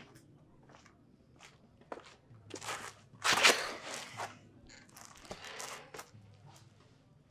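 A few footsteps, then clothes rustling and scraping as a person slides down to sit on the floor against a brick wall, loudest about three and a half seconds in, with smaller shuffles afterwards.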